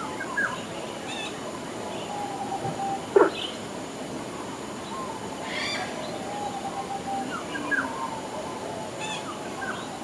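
Birds calling: scattered short chirps and gliding calls over a steady hiss, with one loud short call about three seconds in and a honk-like call near six seconds.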